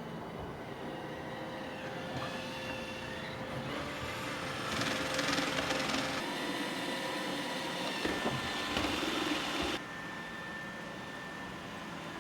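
iRobot Roomba 880 robot vacuum running, a steady motor whine with brush and suction noise; it grows louder for about five seconds in the middle, then drops back suddenly.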